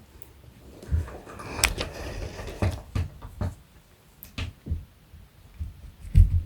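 Cats scuffling and play-fighting: irregular thumps and knocks with rustling in between, the heaviest thump near the end.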